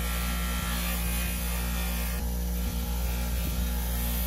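Bench grinder fitted with a buffing wheel, running steadily with an electric motor hum while a small steel pin is held against the wheel and polished.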